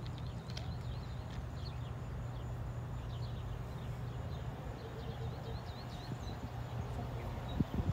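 A steady low rumble from distant diesel locomotives approaching, with small birds chirping over it. A couple of low thumps come near the end.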